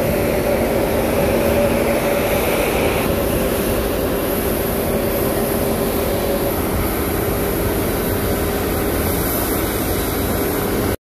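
Steady jet aircraft noise on an airport apron: a loud, even rushing with a high hiss and several steady whining tones, some of which fade out partway through.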